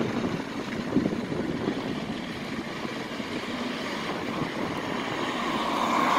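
Double-decker bus engine running as the bus pulls away into the depot, its sound fading, then road traffic noise swelling again near the end.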